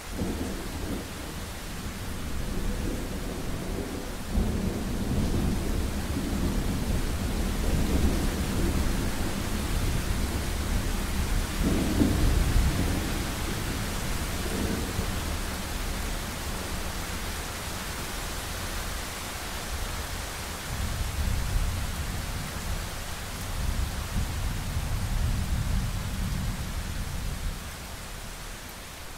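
Thunderstorm: long, deep rolls of thunder over a steady hiss of rain. The thunder swells soon after the start and is loudest about twelve seconds in, then a second rumble comes in later and dies away near the end.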